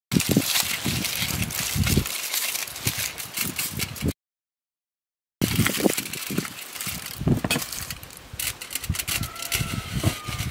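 Aluminium foil crinkling and rustling as hands press it down over steel tumblers, with small knocks of handling; after a short silent gap the foil lid is pierced with a knife and a wooden stick is pushed through it.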